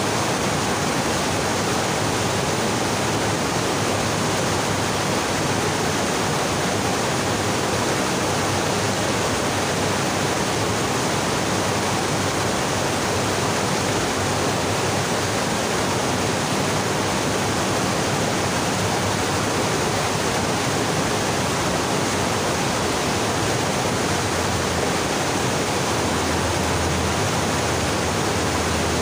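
Fast-flowing rocky stream rushing over boulders: a steady, even wash of white-water noise with no change throughout.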